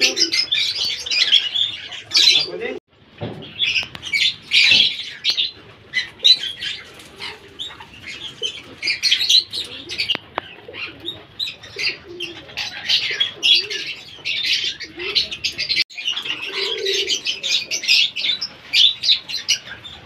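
Conures chirping: a steady stream of short, high chirps and chatter, broken by a brief lull twice.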